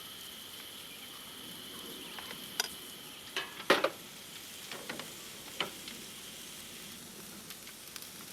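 Food sizzling in a frying pan over a camp stove, a steady hiss, with a few sharp knocks and scrapes of a utensil against the pan between about two and six seconds in, the loudest just before four seconds.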